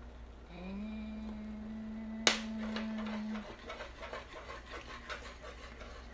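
A metal utensil stirring in a small stainless saucepan as beaten egg is poured into hot water, with one sharp clink against the pan about two seconds in and rapid, uneven little clinks and scrapes after it. Over the first three seconds a steady pitched hum is held, then stops.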